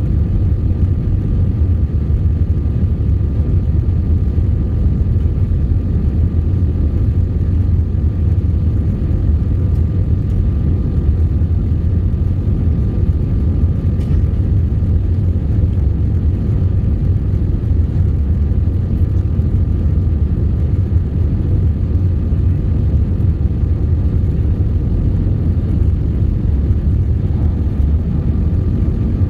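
Steady low cabin rumble of a jet airliner in flight: engine and airflow noise heard from inside the cabin at a window seat, with a faint steady high whine above it.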